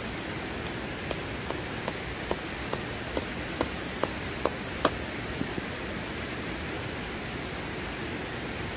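A rock striking a tent stake to drive it into stony ground: about a dozen sharp knocks, two or three a second, growing louder, then stopping a little past halfway. A steady rush of creek water runs underneath.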